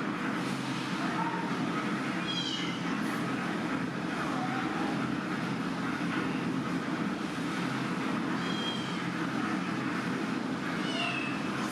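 Baby monkey giving a few short, high-pitched crying squeals, spaced several seconds apart, over a steady low rumble.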